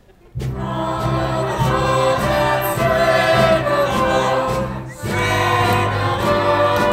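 A chorus of voices singing loudly together over instrumental accompaniment, starting suddenly about a third of a second in, with a brief dip just before five seconds.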